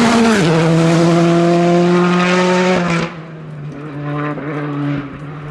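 Hyundai i20 R5 rally car's turbocharged four-cylinder engine at full throttle as the car passes close by, its note dropping in pitch as it goes past. About three seconds in the sound falls away sharply to a fainter engine sound in the distance.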